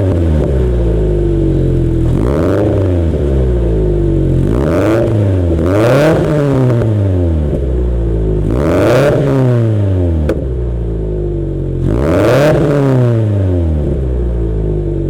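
Turbocharged Subaru BRZ flat-four engine revved again and again through its existing exhaust: a stock mid pipe with a Nameless axle-back and mufflers. The pitch rises and falls back about five times, with the engine running in between.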